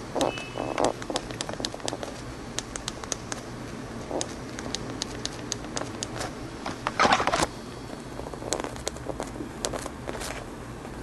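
Fingers tapping and pressing a smartphone's screen and buttons: a string of sharp, uneven clicks, with a louder rustle of handling about seven seconds in. The phone is frozen and does not respond to the presses.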